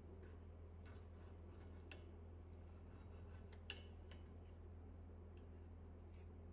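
Faint scraping and clicking of a knife and fork against a plate as they cut through a baked eggplant dish, with one sharper clink a little past halfway, over a low steady hum.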